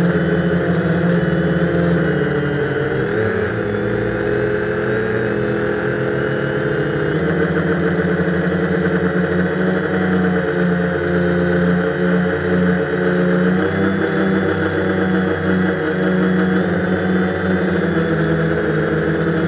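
Quanum Venture quadcopter's electric motors and propellers whining steadily, heard from on board the craft, the pitch shifting a few times with motor speed.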